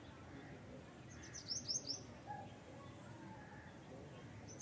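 A small bird giving a quick run of about six short, high chirps, each dropping in pitch, lasting about half a second about a second in.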